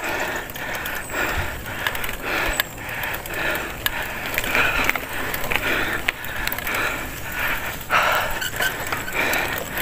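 A cyclist breathing hard in quick, rhythmic puffs, about two a second, from the effort of pedalling a mountain bike up a steep climb, with scattered light clicks and rattles from the bike.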